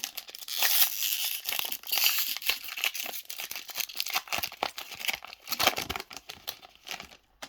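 Foil wrapper of a Pokémon TCG Darkness Ablaze booster pack being torn open and crinkled, a dense crackle with many sharp snaps that dies away about seven seconds in.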